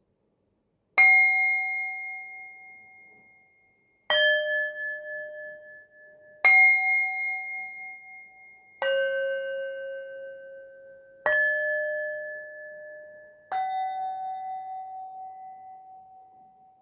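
Struck meditation bells ringing out: six strikes at different pitches, each with a sharp start and a clear ringing tone that fades slowly before the next.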